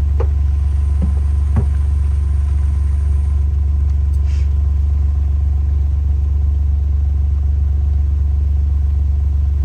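A vehicle engine running steadily, giving a loud, even low drone.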